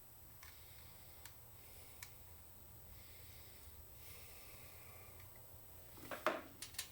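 Faint clicks and light taps of small metal parts being handled while trying to thread a part on, with a quick run of louder clicks and rattles about six seconds in, over a steady low hum.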